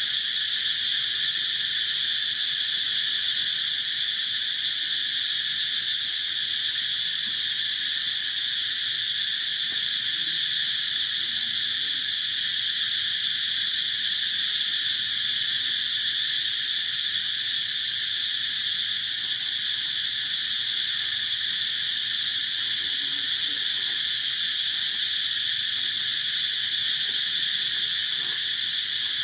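Insect chorus droning steadily at a high pitch, with a weaker, lower band beneath it.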